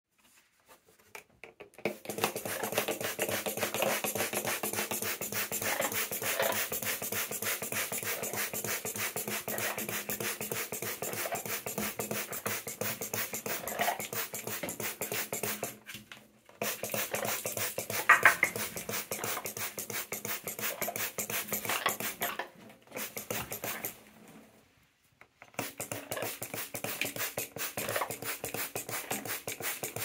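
Fine water mist from a hand-held spray bottle hissing over a wet Amazon parrot, in long runs broken by a few short pauses. Over it the parrot makes soft little happy sounds, the clearest about halfway through.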